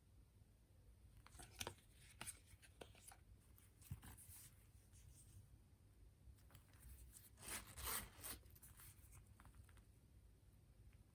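Faint rustling and scraping of things being handled, in a few short bursts with the longest about eight seconds in, over quiet room tone.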